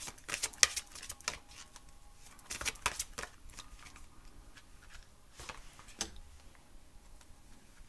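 A deck of tarot cards being shuffled by hand: quick clusters of card flicks and snaps in the first second and again around three seconds in, with a few single flicks later.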